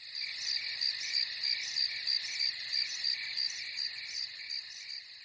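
Crickets chirping in a chorus, a high pulsing trill of about four chirps a second that slowly fades out toward the end.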